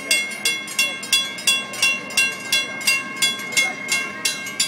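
Bridge warning bells on a tower beside the Michigan Avenue bascule bridge ringing in a rapid, even clang, about three strikes a second. Each strike leaves several ringing tones. The bells signal that the bridge leaf is raised.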